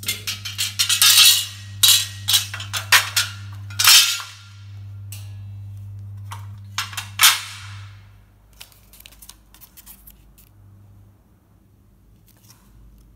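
Plastic wrapping crinkling and rustling as the steel beams of a boltless storage rack are handled, in a run of sharp crackles over the first four seconds and a few more about seven seconds in, then only faint light ticks. A low steady hum runs underneath.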